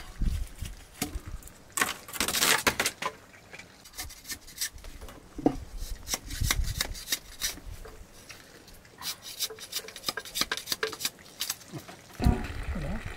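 Bamboo being split and shaved into thin strips with a large curved khukuri knife: repeated sharp clicks and cracks as the blade bites, with a longer rasping scrape about two seconds in. Near the end a low, wavering sound comes in.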